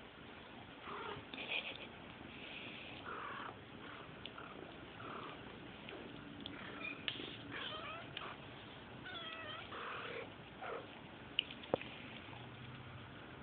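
Half Turkish Angora kittens mewing again and again in short, wavering high calls while they wrestle in play, with two sharp taps close together near the end.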